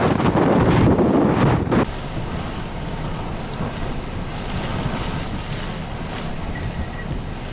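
Strong tropical-storm wind buffeting the microphone over rushing storm-surge water. About two seconds in it drops suddenly to a steadier, quieter rush of wind and water.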